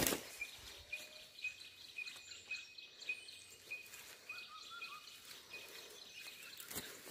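Quiet forest ambience: a short, high chirp repeats about three times a second, and a few faint bird calls come around the middle.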